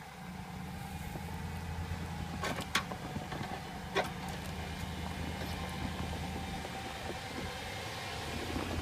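Jeep Commander engine running at low revs as the SUV crawls slowly through a muddy trail rut, a steady low hum. A few sharp snaps or cracks come through, the loudest about four seconds in.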